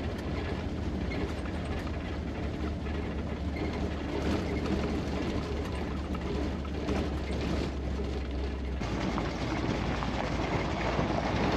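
1979 Chevy K10 pickup rolling down a gravel road: a steady low drone with tyres crunching on gravel and the truck's body rattling and clicking. About nine seconds in the low drone drops away and the sound changes abruptly to the tyres on gravel heard from outside.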